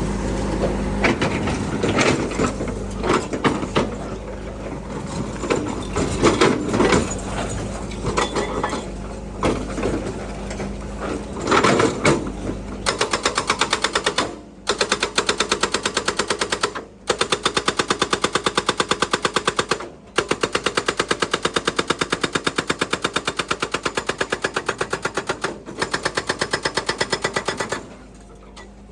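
Small excavator machinery: irregular clattering and knocks, then a fast, even run of sharp pulses, several a second, that breaks off briefly a few times before stopping near the end.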